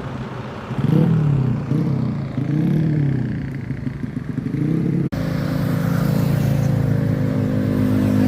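Road vehicle engine revving, its low note rising and falling in pitch about three times. After an abrupt cut about five seconds in, a steady low engine drone follows.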